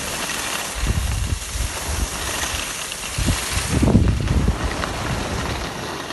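Skis hissing and scraping over packed snow, with wind buffeting the moving phone's microphone in low gusts about a second in and again around three to four seconds in.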